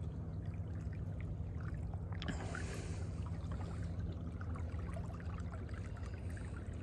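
Water lapping and trickling against a canoe hull as it moves through the water, over a steady low hum.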